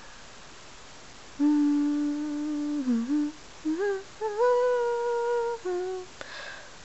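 A girl humming a slow tune with closed lips: long held notes with slides between them, starting about a second and a half in. A short breath near the end.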